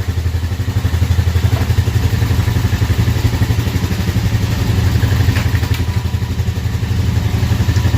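ATV engines idling loudly and steadily.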